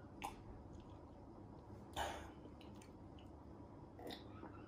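A person swallowing while drinking from a mug: three faint, short gulps about two seconds apart, the middle one the loudest.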